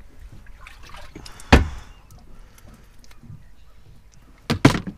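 Small mesh dip net swished through the water of a boat's livewell, with light splashing and dripping. One hard knock about a second and a half in and a quick double knock near the end, from hard objects striking the fibreglass boat.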